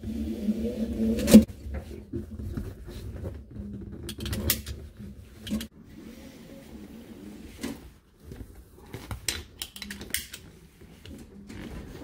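Newly fitted three-point retractable seat belt being pulled out and buckled inside an old pickup cab: scattered clicks and clacks of the metal latch and retractor with rustling webbing, the sharpest click about a second and a half in. A low hum sounds under the first second and a half.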